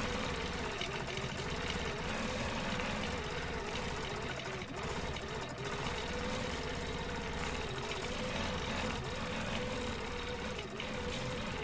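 Free-motion quilting machine running and stitching pebbling through fabric, a steady hum whose pitch wavers slightly as the stitching goes on.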